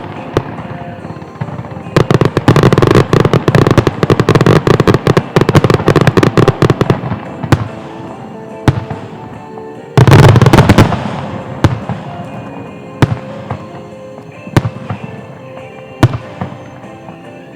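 Aerial fireworks bursting: a rapid barrage of bangs and crackles for about five seconds, then one big boom with a long rumbling tail about ten seconds in, followed by single bangs every second or so. Music plays faintly underneath.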